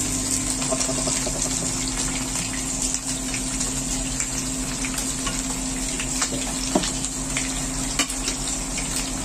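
Hot oil sizzling and crackling around a large whole fish frying in a stainless steel wok, with many small spatters and a couple of louder pops in the second half. A steady low hum runs underneath.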